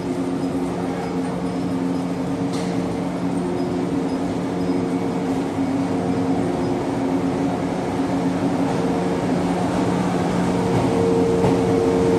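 Izukyu Resort 21 electric train humming steadily at the platform with several level tones from its electrical equipment, then pulling away, the sound building gradually toward the end.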